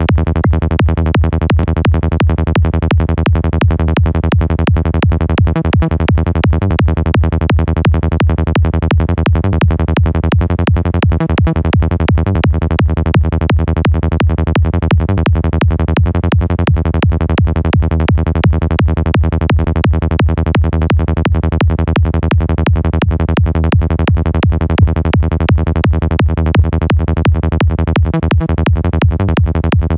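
Fast high-tech psytrance bass loop at 170 BPM: a distorted Sylenth1 synth bass patch, saturated with FabFilter Saturn, playing a rapid, steady pulsing pattern heavy in the low end over a kick drum. The bass is sidechain-compressed from the kick, so it ducks on each beat.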